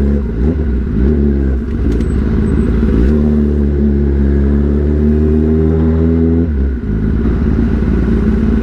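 Kawasaki ZX-10RR's inline-four engine through a short titanium SC Project exhaust, ridden in low gear: the engine note dips and rises in the first few seconds, climbs steadily in pitch for about three seconds, then drops suddenly about seven seconds in and runs on steady.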